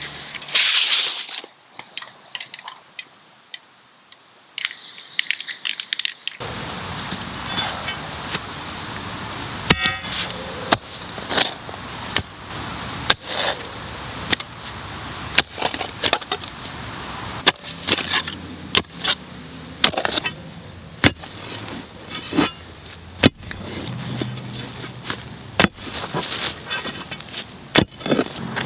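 Repeated strikes of a digging tool into hard ground, a sharp blow about every half-second to second, irregular in strength, as a post hole is dug.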